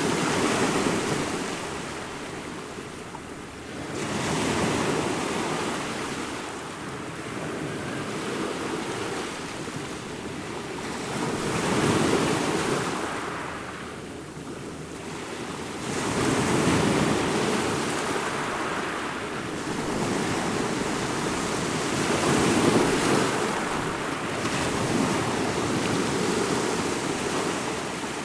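Ocean waves breaking and washing up the shore, the surf swelling and ebbing every few seconds, about seven swells in all.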